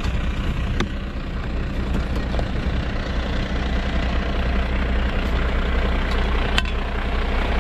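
Fire engine's engine idling steadily with a constant low hum. Two short sharp clicks stand out, about a second in and near the end.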